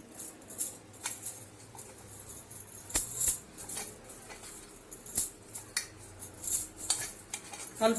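Dry moong-and-rice flour with chopped onion and spice paste being mixed in a bowl: irregular rustling and light clicks against the bowl, with a sharper knock about three seconds in.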